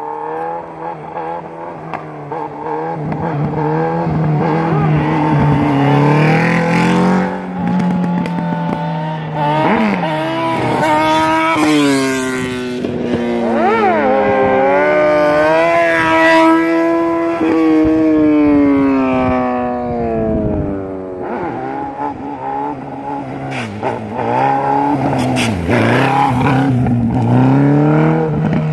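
Suzuki Hayabusa's inline-four engine held in a slow wheelie, its pitch climbing and falling again and again as the throttle is worked, with a long, slow drop in pitch about halfway through.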